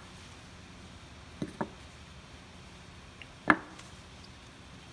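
Small square wooden block knocking down onto a wooden board. There is a light double knock about a second and a half in and a louder single knock about three and a half seconds in.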